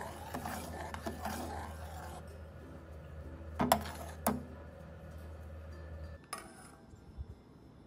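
Metal ladle stirring and scraping through hot dragon fruit and agar-agar liquid in a stainless steel pot, with two sharp clinks of metal on metal a few seconds in. A low steady hum runs underneath and cuts off with a click about six seconds in.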